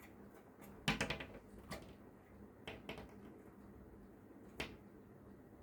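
A bird striking and tapping on a mirrored window pane, fighting its own reflection: a quick flurry of taps about a second in, then single knocks every second or so.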